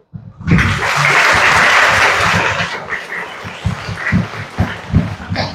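A crowd of students applauding. The clapping starts about half a second in, is dense at first, then thins to scattered claps and dies away near the end.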